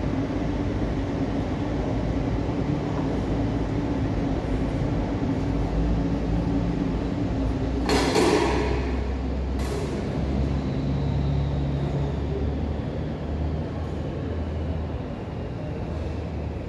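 Steady low rumble and hum of airport apron machinery around a parked airliner, with a steady mid tone that fades out about eight seconds in. At that point there is a brief burst of noise, then a shorter one about a second and a half later.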